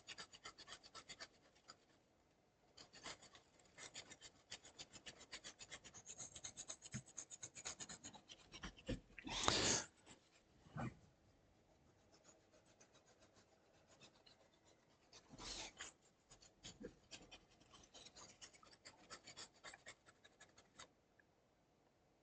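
Small cleaning brush scrubbing oxidation off a laptop motherboard with isopropyl alcohol, in spells of quick, light scratching strokes. A short puff of breath stands out about nine and a half seconds in, with a couple of softer ones later.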